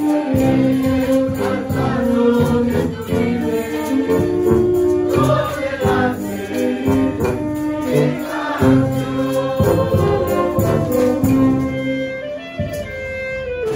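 Brass band playing a tune: trumpets, trombones, French horns and sousaphones sounding held notes together, with a bass drum and snare drum keeping the beat.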